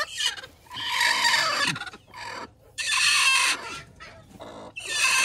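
Native chickens clucking and squawking, three loud calls spaced about a second apart.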